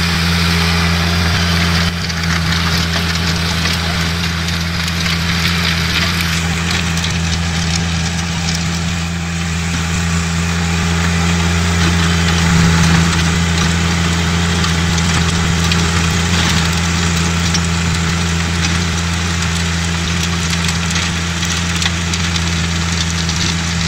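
John Deere 1025R compact tractor's three-cylinder diesel engine running steadily under load, driving a rear-mounted rotary tiller through the garden soil. A steady hiss sits over the engine's low drone.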